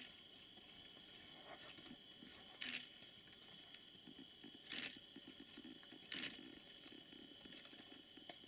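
Faint nighttime insect chorus, a steady high-pitched trilling. Three brief, sharper sounds stand out about two seconds apart.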